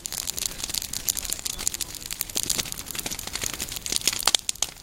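Fire burning through dry grass and leaf litter: dense, irregular crackling and snapping, with no steady rhythm.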